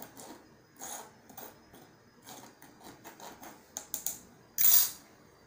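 Spoon scraping and tapping against a mesh sieve as flour and sugar are sifted into a bowl: irregular light clicks and scrapes, with one louder scrape near the end.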